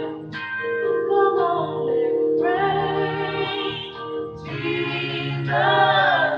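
Gospel choir singing, with female voices carrying the phrases over steady held keyboard chords.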